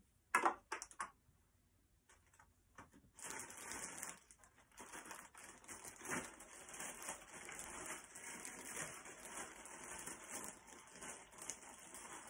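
Several sharp clicks about half a second in, then continuous crinkly rustling and small ticks as things are handled and rummaged through by hand.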